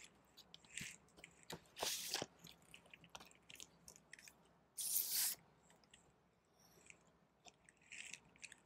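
Faint rustling of a paper inner sleeve and soft handling clicks as a vinyl LP is slid out of it, with a brief louder paper swish about five seconds in.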